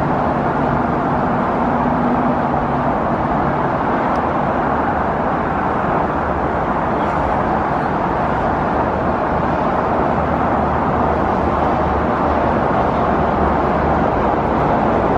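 Steady roar of busy highway traffic, with a low engine hum from one passing vehicle during the first few seconds. No firework bangs stand out.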